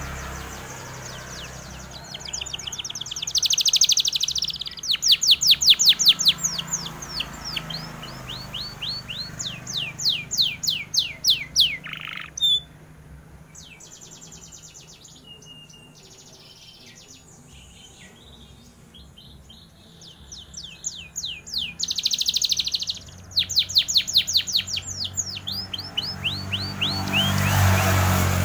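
Domestic canary singing: long, fast trills of rapidly repeated high notes in several bursts, with a pause of several seconds in the middle before the song picks up again.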